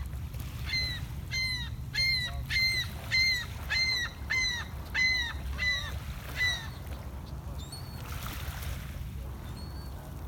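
A gull giving a rapid series of about ten short, down-curving cries, then falling silent about two-thirds of the way through, over a steady low rumble.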